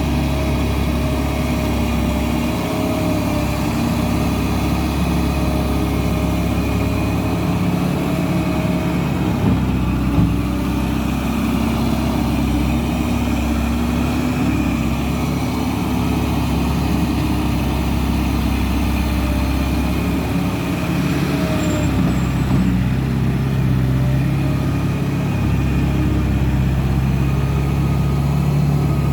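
A loader's diesel engine running steadily under work, its pitch shifting as the throttle changes, with one short knock about ten seconds in.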